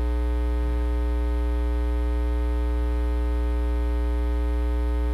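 Steady electrical mains hum with a dense stack of overtones.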